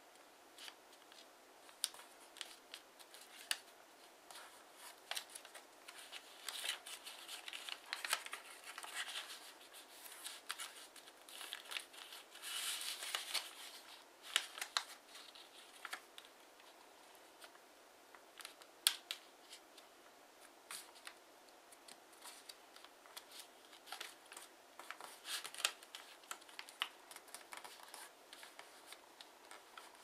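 Sheet of origami paper rustling and crinkling as hands fold and crease it, with many small sharp crackles, busiest around the middle.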